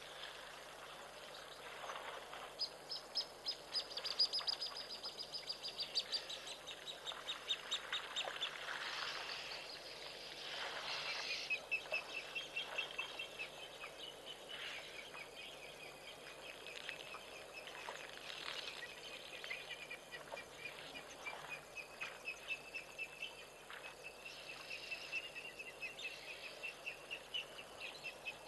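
Birds calling: a fast run of high repeated notes that falls in pitch, then a long chatter of quick repeated notes at a steady, slightly lower pitch.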